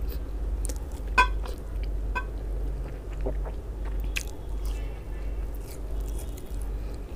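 Close-miked eating of a grilled sausage: two short ringing clinks about one and two seconds in, then a bite through the sausage around four seconds in, followed by wet chewing. A steady low hum runs underneath.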